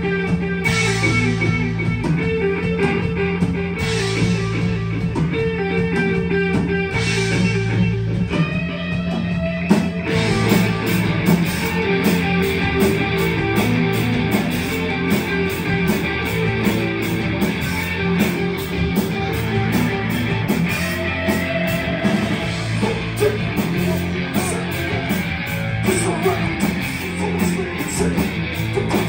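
Live rock band playing amplified electric guitars, bass guitar and drums. About ten seconds in, the music gets fuller, with a steady fast beat.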